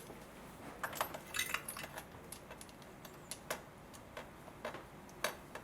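Light metallic clicks and clinks of spark plugs and small hand tools being picked up and handled, about a dozen scattered sharp ticks with no steady sound beneath.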